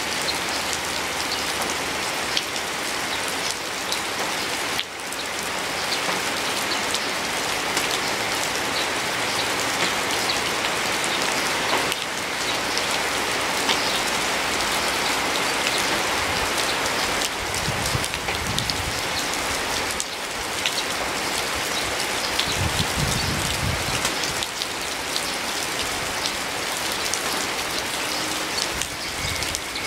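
Steady heavy rain, with individual drops ticking close by. Twice past the middle a short low rumble rises under the rain.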